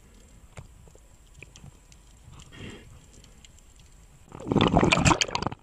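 Underwater sound picked up by a diver's camera while he wrestles a large octopus: scattered faint clicks and a soft rustle, then about four seconds in a loud, rough burst of knocking and bubbling that lasts about a second.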